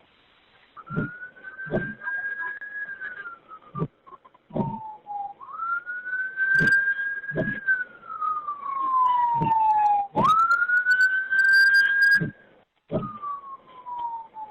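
Emergency-vehicle siren on a wail cycle: the tone climbs, holds high, then slides slowly down, about three times over. Irregular dull thumps sound underneath it.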